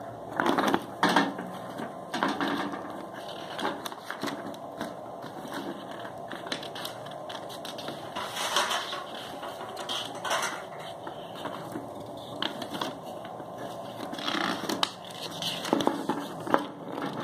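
Paper rustling as the pages of an oven's instruction booklet are handled and turned, in irregular bursts of crackle and rustle.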